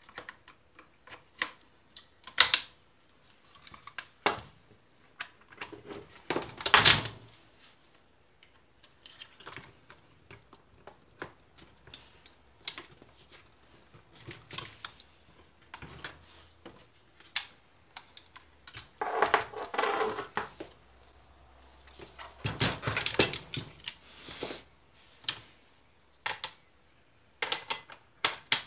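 Irregular clicks, knocks and scrapes of an airsoft light machine gun's plastic and metal receiver parts being handled and fitted together by hand. There is a louder clatter about a quarter of the way in and two longer rattling spells in the second half.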